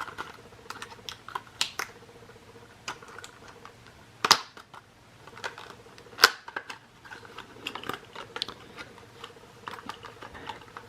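Toy packaging being cut and pried open by hand: a string of light plastic clicks and crinkles, with two sharper snaps about four and six seconds in.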